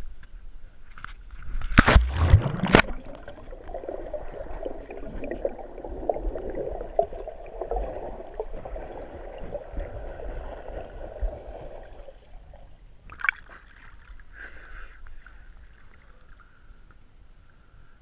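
Lake water splashing as a waterproof action camera plunges under the surface. Muffled underwater gurgling and rushing is heard through the camera housing for about eight seconds, then comes a sharp splash as it breaks the surface again.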